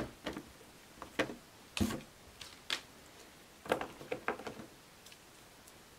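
Shrink-wrapped card decks being set into a plastic box insert tray: a scattering of light clicks and knocks of card packs against the plastic, the sharpest about two seconds in and a small cluster around four seconds.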